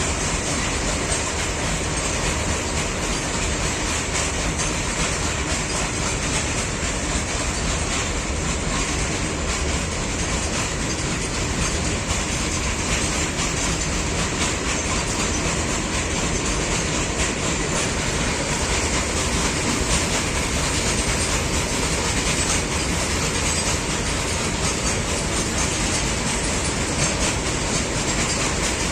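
Train running past steadily: a continuous loud rumble, with the wheels clicking over the rail joints.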